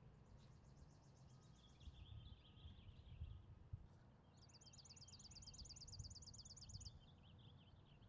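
Faint songbird song: two high, rapid trills of evenly repeated notes, each lasting about two seconds, with lower twittering between and after them, over a low rumble.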